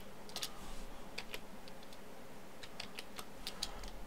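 Computer keyboard keys clicking: a scattered run of single presses at uneven intervals.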